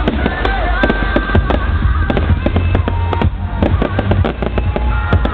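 Fireworks going off at a display: many sharp bangs and crackles in quick succession, with music playing underneath.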